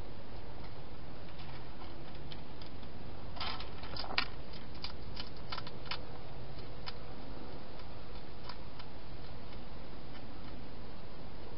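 Hedgehog feeding at a bowl inside a plastic feeding box: scattered short clicks and crunches, bunched together about three and a half to six seconds in, over a steady hiss.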